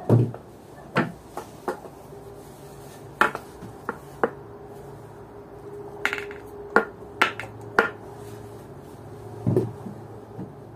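About a dozen sharp clinks and knocks at irregular intervals, the sound of hard objects being handled, over a faint steady hum.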